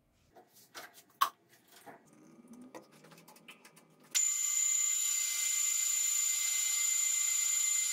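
A few light clicks and knocks of handling at a metal lathe, then about four seconds in the Metal Master X40100 lathe starts abruptly and runs steadily with a high whine as its chuck spins a steel tube.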